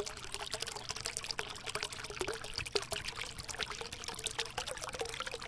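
Shallow water trickling and splashing steadily over rocks, with many small splashes.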